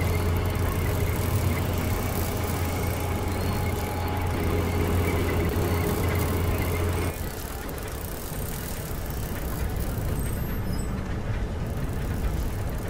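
Animated HO scale model crane working, a steady low mechanical hum with a faint high squeal that drops away about seven seconds in.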